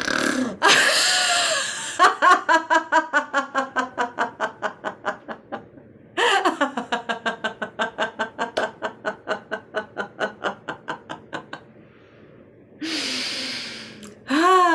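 Snore laughter: a person snores in noisily through the nose, then laughs out in long runs of rapid, even "ha-ha" pulses, twice in a row. After a short pause, another snoring inhale near the end leads into a new laugh.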